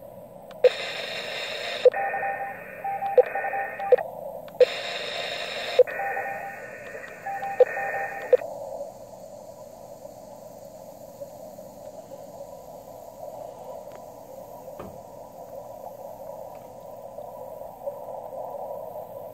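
mcHF shortwave transceiver on the 20-metre CW band: steady band-noise hiss from its receiver, interrupted in the first half by two near-identical runs of sharp clicks and short, broken beeping tones like Morse code.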